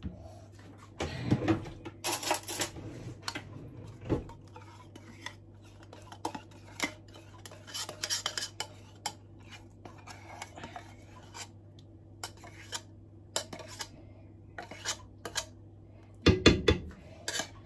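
A metal spoon and a tin can clinking and scraping against each other and against the frying pan as thick condensed milk is poured out and scraped from the can. The clinks come scattered throughout, loudest in clusters about a second in and near the end.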